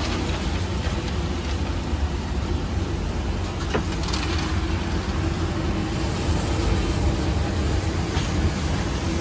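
Steady low rumble of roadside traffic, with a few faint light clinks of metal.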